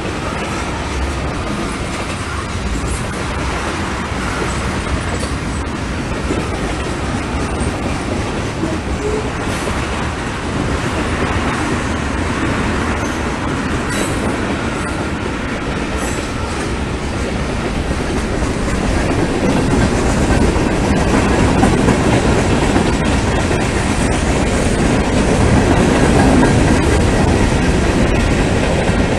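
Freight train of tank cars and covered hoppers rolling past, steel wheels running over the rails in a continuous clatter that grows louder about two-thirds of the way through.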